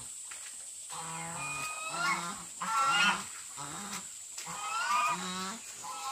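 Farm animal calling repeatedly: a run of short, pitched calls that starts about a second in.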